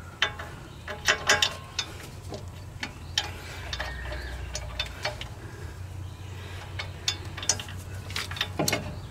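Irregular metallic clicks and taps as a bolt is worked by hand into the lower brake caliper bracket of a Chevy Suburban, the fitter feeling for the thread to start.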